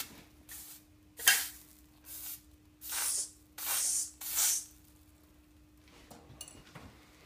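Flux burning on torch-heated aluminum sheet: short hissing sizzles, about five in the first few seconds, as it is brushed onto the hot metal under the oxyacetylene flame.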